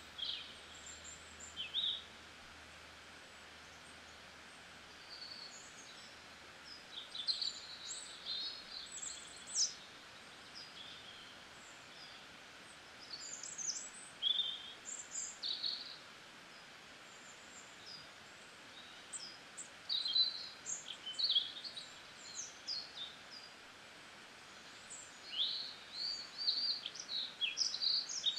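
Birds chirping: scattered spells of short, high calls over a steady background hiss.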